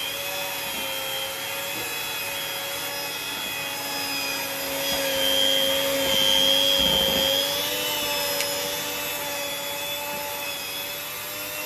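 Electric mixer running steadily as it beats frosting in a bowl, with a steady motor whine. It grows a little louder about halfway through.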